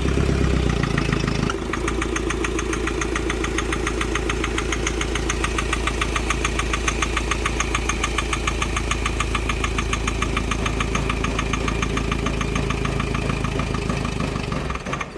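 Mahindra Scorpio's mHawk four-cylinder common-rail diesel engine running with a rapid, even knocking tick. The mechanic traces this kind of clatter to low boost and a fault at the No. 2 injector, and says it goes quiet when the EGR valve is opened.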